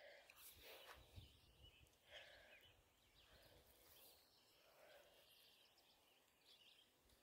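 Near silence: faint outdoor ambience.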